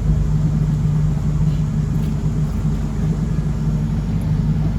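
Boat engine running steadily under way at sea: an even, low drone.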